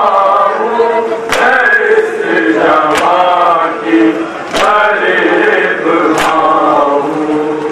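Male voices chanting a noha, a Shia mourning elegy, in a slow melodic line. A sharp slap falls about every second and a half, keeping time: the hand-on-chest beating (matam) that accompanies noha recitation.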